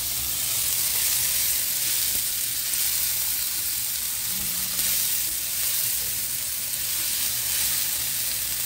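Chopped tomatoes and jalapeños sizzling steadily in a frying pan while being stirred.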